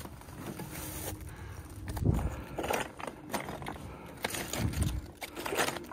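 Hiking boots crunching and slipping on loose scree and rock on a steep descent, with a gloved hand scraping over rock. The steps come irregularly, loudest about two seconds in and again near the end.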